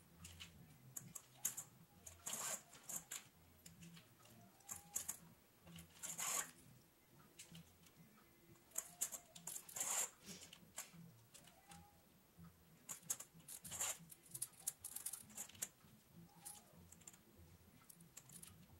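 Hand saddle-stitching of veg-tan leather: a stitching awl piercing the leather and the thread drawn through the holes in short rasping pulls, repeating every second or two.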